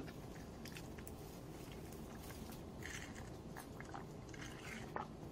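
Faint chewing of a soft breakfast muffin, with small mouth clicks and a couple of soft hissy mouth sounds.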